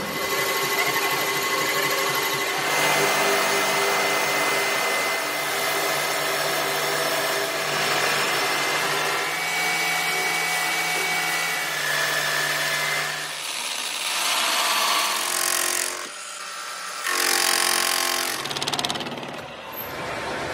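Metal lathe turning a steel tractor wheel-axle shaft: the machine runs steadily with the hiss of the tool cutting and several steady whining tones, with a brief break about sixteen seconds in.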